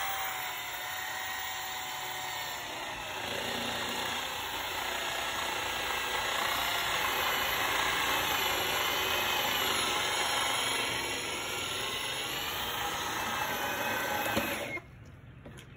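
Power drill running steadily as it drives a worm-gear hand winch, reeling in rope to haul a loaded cart up a slope. The drill's whine wavers slightly in pitch and cuts off suddenly near the end.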